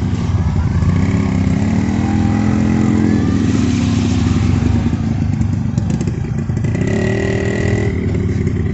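Motorcycle engine running steadily, its pitch rising as it revs up about two seconds in and again near the end.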